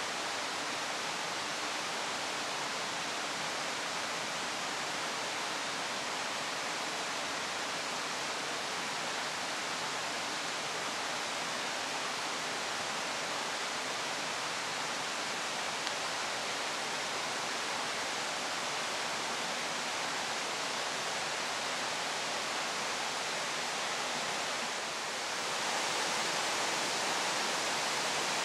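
A steady, even rushing noise with no pitch or rhythm, growing slightly louder about three seconds before the end.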